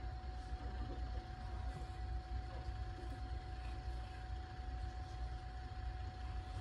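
Steady low hum of a nebulizer and oxygen unit running during a cat's inhalation and oxygen therapy, with a constant whine held at one pitch.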